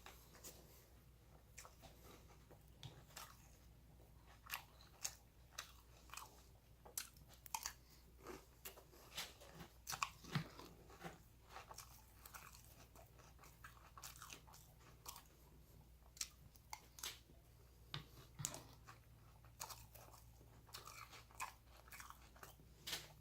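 Cinnamon Toast Crunch cereal being chewed, with irregular crisp crunches at close range.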